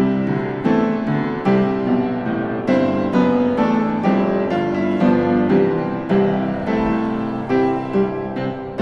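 Background piano music: a gentle melody of struck notes over chords.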